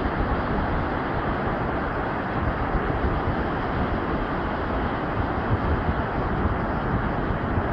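Steady rushing wind noise on the microphone with a low rumble, as heard while riding a bicycle along a trail.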